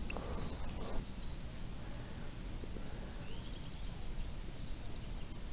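Outdoor lakeside ambience: a steady low rumble of wind on the microphone, with a faint short bird chirp about three seconds in.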